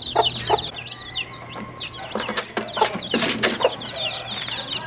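Chickens clucking, with a steady run of short, high chirps over the top. A brief, harsh, noisy burst comes about three seconds in.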